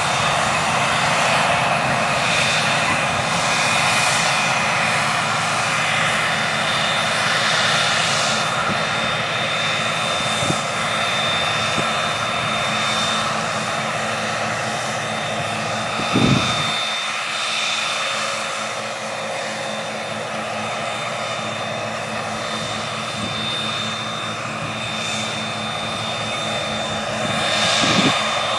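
620 hp John Deere 9620R tractor running steadily under load while pulling an air drill, a continuous drone with a steady high whine over it, easing slightly in the second half. A single brief low thump comes about halfway through.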